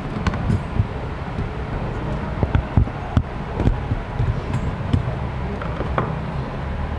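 Scattered sharp clicks and knocks of a scooter's CVT drive belt and rear clutch pulley being handled and fitted by hand into the open transmission case, over a steady low hum.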